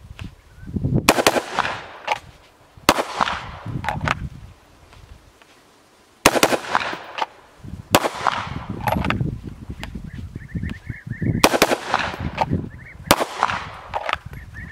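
Six live gunshots from a pistol and an AR-style carbine, in three pairs about two seconds apart, each with a ringing echo.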